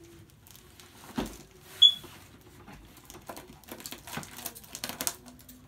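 Hands handling a cardboard shipping box, scratching and picking at its packing tape: small clicks and scratches, a thump about a second in, and a short, sharp, high squeak just before two seconds, which is the loudest sound.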